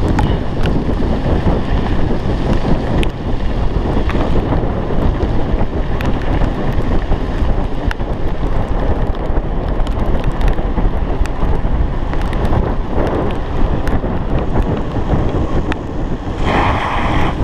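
Wind rushing over a chest-mounted GoPro's microphone at riding speed on a mountain bike descending a dirt trail, a steady low rumble with frequent sharp rattles and knocks from the bike over rough ground.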